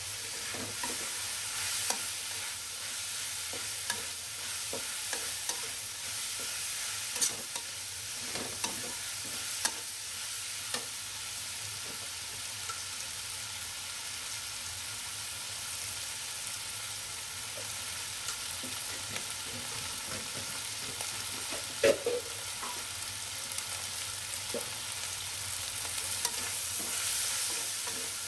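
Eggplant and minced pork stir-frying in a wok: a steady sizzle, with the metal spatula scraping and clacking against the pan in short scattered clicks, the loudest about three quarters of the way through.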